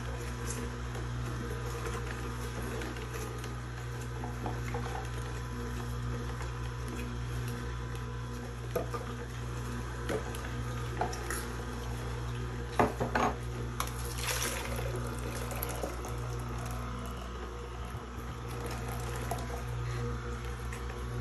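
Vertical slow juicer running with a steady low hum as pear chunks are fed down the chute and pressed, with a few sharp knocks in the middle as pieces drop and are pushed in. Pear juice runs from the spout into a glass pitcher.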